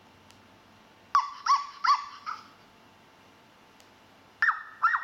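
Recorded dog barks played through a tablet's speaker from a soundboard app. There are four quick barks about a second in and three more near the end, each group preceded by a faint click.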